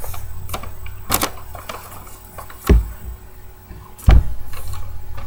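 A few knocks and thumps over a low rumble, the loudest a heavy thump about four seconds in.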